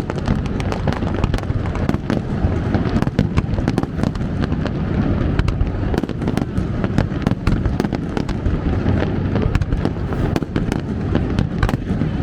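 Aerial fireworks display: a dense, irregular run of sharp cracks and bangs over a continuous low rumble of bursts.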